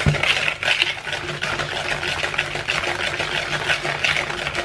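Wire whisk beating a thick butter, sugar and egg batter in a plastic bowl: rapid, steady strokes scraping and clicking against the bowl.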